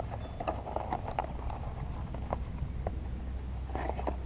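Scattered small clicks and rustles of a monocular kit's accessories and plastic bags being handled and unpacked, heaviest in the first second and a half and again near the end, over a steady low rumble.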